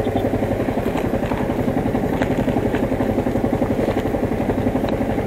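Yamaha MT-15's single-cylinder engine idling steadily with an even, rapid pulse while the bike stands still.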